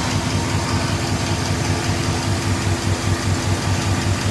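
GM 5.3-litre V8 idling steadily with a slight lifter tick, the tick quieted by a Rislone oil treatment.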